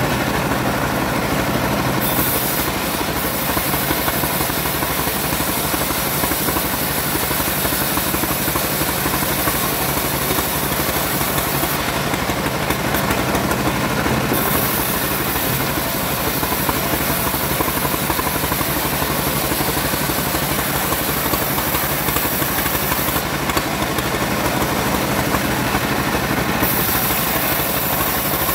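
Home-built bandsaw mill running steadily while sawing sengon wood, a constant engine-like drone with a hissing top. The highest hiss drops away briefly a few times.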